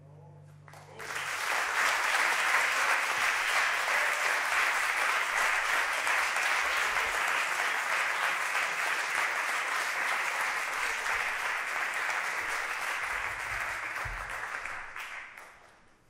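Audience applauding at the end of a song: clapping swells in about a second in, holds steady, and dies away near the end.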